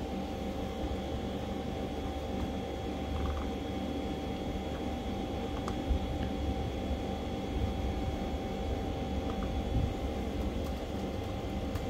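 Steady low mechanical hum with a faint steady whine, like a fan running, and a few faint clicks from a laptop touchpad and keyboard.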